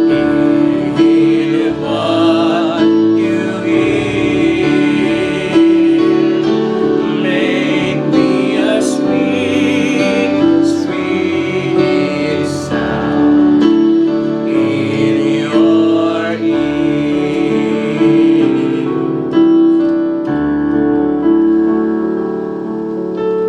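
Slow gospel worship music led by keyboard, with held chords under a wavering melody line.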